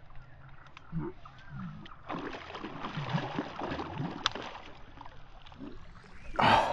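Water sloshing and splashing, busier in the middle, with a short louder burst just before the end.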